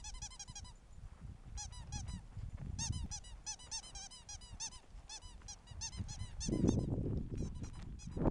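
Ferret dooking: rapid runs of short chirping clucks, several a second, coming in bursts while it runs and plays. A low rumbling noise comes in about six and a half seconds in and becomes the loudest sound.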